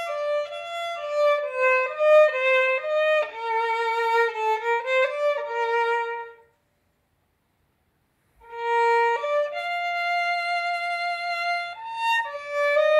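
Solo violin played with the bow: a melody of short, changing notes that stops about six and a half seconds in, leaving about two seconds of silence, then starts again with longer held notes.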